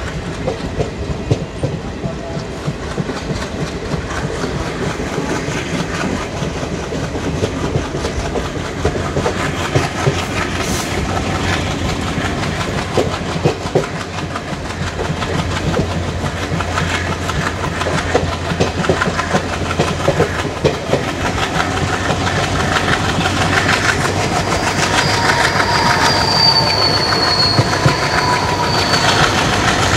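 Wheels of ICF passenger coaches running over the track: a steady, dense clickety-clack of wheels over rail joints that grows louder in the last third. Near the end a thin, high-pitched drawn-out tone sounds for a few seconds over the clatter.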